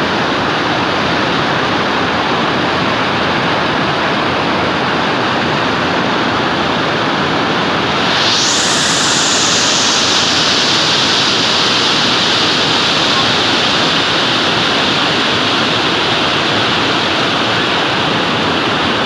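Waterfall rushing steadily, a dense roar of falling water. About eight seconds in, the hiss turns brighter and a little louder and stays that way.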